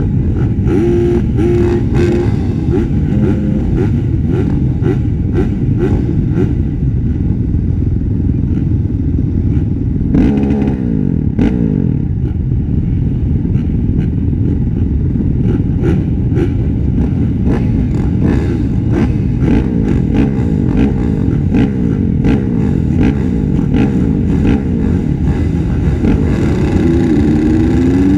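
Honda 450 four-stroke motocross bike engine running hard under race throttle, its pitch climbing and dropping through the throttle and gear changes, with frequent sharp knocks throughout.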